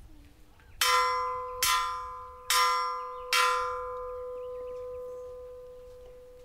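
A metal bell struck four times in quick succession, each stroke ringing out. The last one hangs on and fades slowly.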